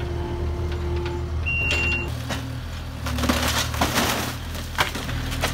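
Kubota mini excavator's engine running steadily, with a short high beep about one and a half seconds in; from about three seconds in, wood cracks and splinters in a series of sharp snaps as the claw tears into a wooden house's roof edge.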